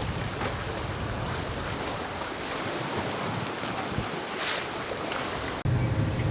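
Sea wash and wind aboard a sailboat under way, an even rushing noise. Near the end it cuts abruptly to a louder, steady low hum.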